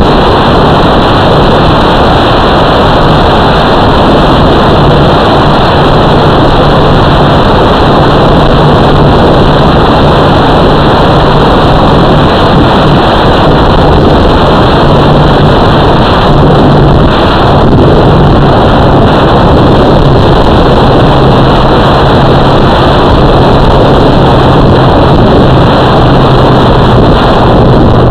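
Loud, steady rushing noise with a low wavering hum, the motor and wind noise picked up on board a small FPV drone in flight.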